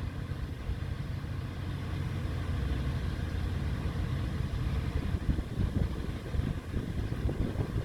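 Diesel engine of heavy construction machinery running steadily with a low rumble.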